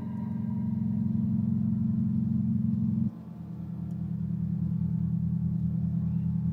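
Live small-ensemble music: a low sustained drone of steady notes that shifts to a slightly lower chord about three seconds in, then swells back up.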